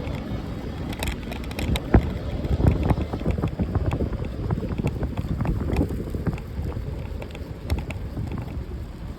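Wind buffeting the microphone in a low rumble, with scattered knocks and rattles throughout.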